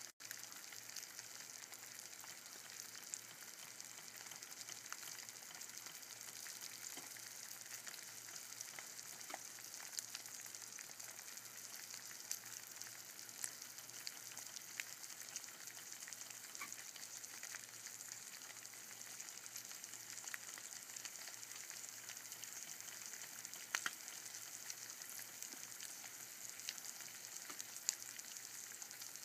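Two eggs frying sunny-side up in a pan: a steady high sizzle with small pops scattered throughout and two louder pops in the later part.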